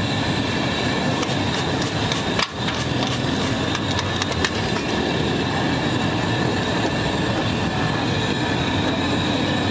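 Potato chips deep-frying in a big pan of hot oil: dense, steady sizzling and crackling. A steady high-pitched whine sounds along with it.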